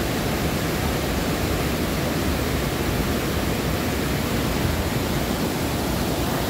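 Water rushing through a river weir: a steady, unbroken rushing noise.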